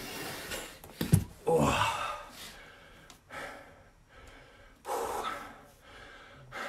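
A man breathing hard and gasping for breath in several separate heavy breaths, winded from high-intensity exercise; a sharp click comes about a second in.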